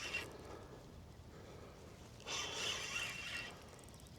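Fishing reel buzzing in a raspy, zipper-like burst of about a second, starting a couple of seconds in, as a hooked rainbow trout is played.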